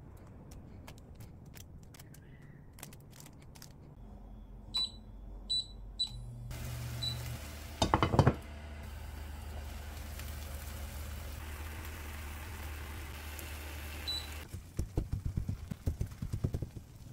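Induction hob's touch controls beeping three times, then the hob humming while the eggs sizzle in the pan; a glass pot lid clanks down onto the frying pan about eight seconds in, the loudest sound. Near the end another beep, the hum stops, and a wooden spatula knocks rapidly against the pan as the cooked egg is cut.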